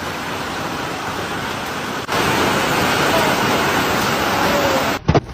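Hailstorm: a dense, steady roar of hail and heavy rain pounding down, louder from about two seconds in. Near the end it gives way to separate sharp hits of hailstones.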